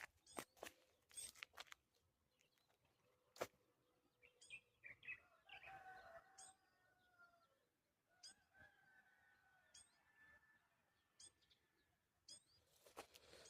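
Faint birdsong: short high chirps repeated every second or two, with a softer warbling song through the middle. A few sharp clicks near the start and one about three and a half seconds in.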